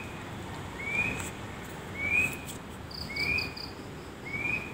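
Night animal calls: a short rising chirp repeated about once a second, with a brief higher trill of quick pulses about three seconds in, over a faint background hiss.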